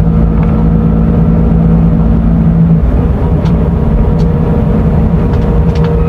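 Scania diesel engine of an Irizar i6S coach running under way, a loud steady drone whose tone shifts slightly about three seconds in, with a few light clicks in the second half.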